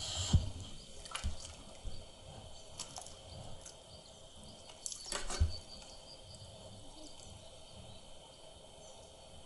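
Water dripping and lapping around a paddle board, with a few short knocks and clicks. The loudest knocks come about half a second in and again about five and a half seconds in.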